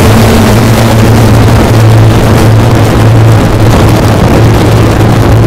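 Very loud, harsh distorted rumbling noise with a steady low hum underneath: an edited 'scary' sound effect.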